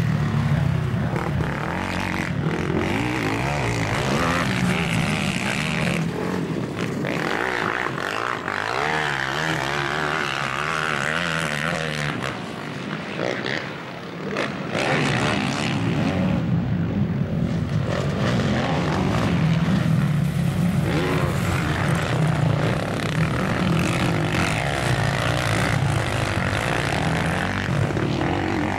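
Racing quad bikes' engines revving hard as they accelerate up and over jumps, the pitch rising and falling with the throttle. The sound dips briefly about 13 seconds in.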